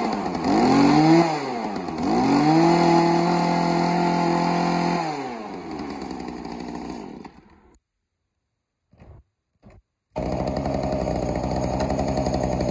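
Small 27cc two-stroke Mitsubishi TBE brush cutter engine being revved: two quick rises and falls in pitch, then held at high revs for a couple of seconds before dropping back to idle. The sound then fades and breaks off. After about two seconds of silence with a couple of short noises, the engine is heard running steadily again.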